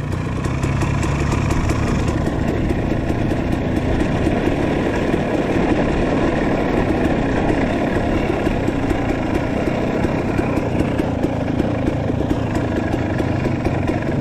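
Dirt bike engine running steadily at low trail speed, without any big revs.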